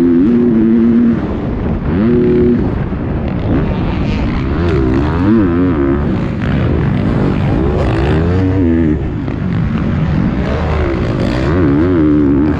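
Dirt bike engine heard from the bike itself while racing, revving up and dropping back again and again as the throttle is opened and shut through the jumps and turns.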